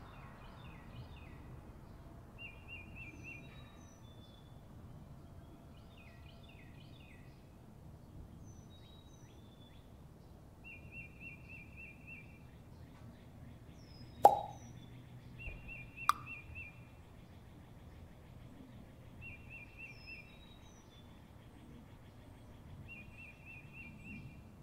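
Quiet outdoor ambience of birds chirping, with a high trill about a second long that repeats every few seconds, over a low rumble. A sharp pop comes about fourteen seconds in, and a smaller click about two seconds after it.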